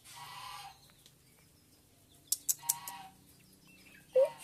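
Short, scattered animal calls. A burst at the start and another a little past two seconds, then two brief rising calls near the end. Three sharp clicks come about two seconds in.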